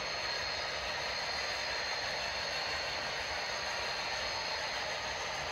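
Steady hiss of rain, with an HO scale model freight train rolling past.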